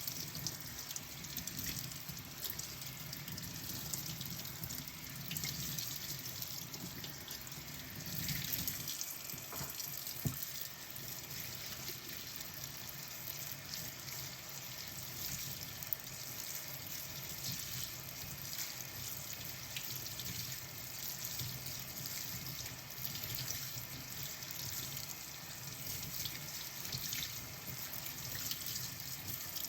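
Kitchen tap running steadily into a sink during hand dishwashing, with a couple of sharp knocks of dishes touching, about ten and sixteen seconds in.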